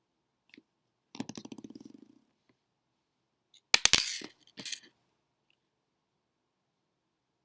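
Small hard parts clattering on a hard surface. First comes a quick rattling run of light clicks lasting about a second. A loud clatter of several sharp knocks follows past the middle, then a smaller one just after.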